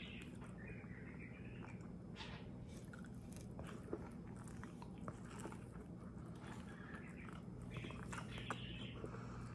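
Close, faint eating sounds: a person biting into and chewing a soft protein wrap filled with bologna, cheese and asparagus, with scattered small wet clicks and smacks of the mouth.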